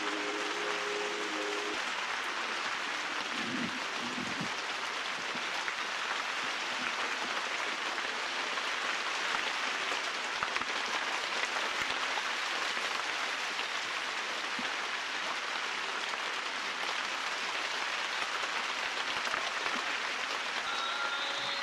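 Steady, even hiss of background noise with no distinct events, and a brief faint low rumble about four seconds in.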